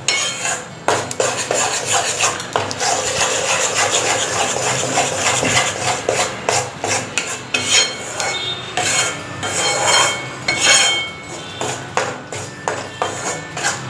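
Flat metal spatula scraping and stirring flour roasted golden in ghee in a metal pan: a continuous rasping made of many quick strokes against the bottom and sides of the pan.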